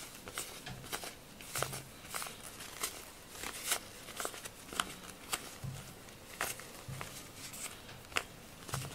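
Rubber grooming glove being flexed and handled while matted cat fur is pulled off it: irregular light clicks and crackles, about one or two a second, with a few soft low thuds.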